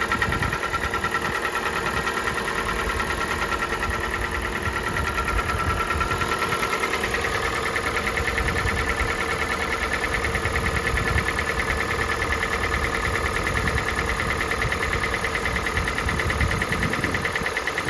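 Kia Sportage's G4NA 2.0-litre four-cylinder petrol engine, at 265,500 km, idling cold with a fast, even ticking knock running through it: the cold-start knocks the owner is listening for, which go away as the engine warms.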